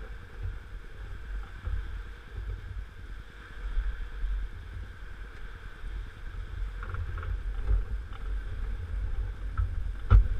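Wind buffeting the microphone, giving an uneven low rumble over a steady faint hiss. A single sharp knock comes near the end.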